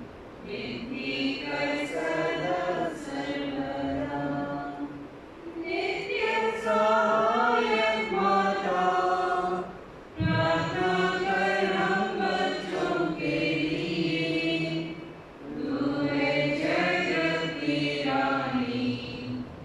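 Voices singing a liturgical hymn in long held phrases, with short breaks about 5, 10 and 15 seconds in.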